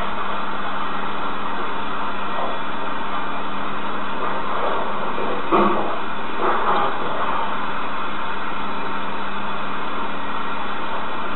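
Steady, even background hiss with a faint hum, with two brief, slightly louder rustles about five and a half and six and a half seconds in.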